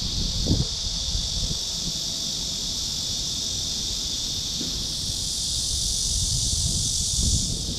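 Steady high-pitched insect chorus, with wind rumbling on the microphone. A second, higher insect buzz joins about five seconds in and stops just before the end.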